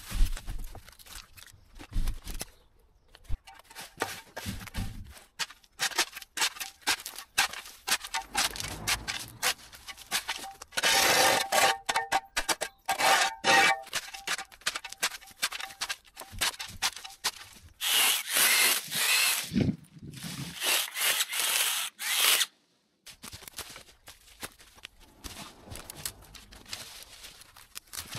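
Dry twigs, brambles and leaf litter crunching and scraping as overgrowth is raked and pulled out by hand with a long-handled garden tool. It comes as a run of short, irregular scrapes, louder in the middle.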